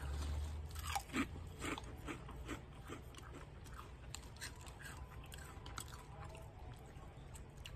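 Mouth-close crunching and chewing of a thin Lay's potato chip: crisp crackling crunches come thick at first and thin out after about three seconds into quieter chewing.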